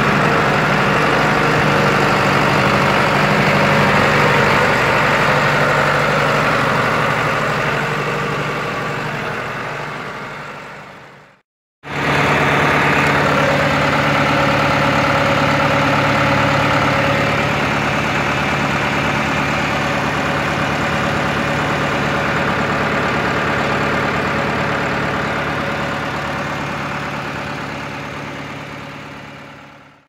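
Farm tractor engine running steadily. The hum fades out about eleven seconds in, breaks off briefly into silence, then comes back and fades out again near the end.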